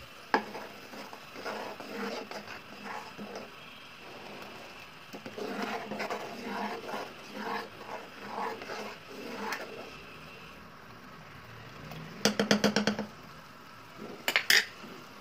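Thick tomato chutney bubbling and spluttering in a pot as it cooks down until the oil rises, and is stirred. A quick run of sharp knocks comes about twelve seconds in, and another short burst near the end.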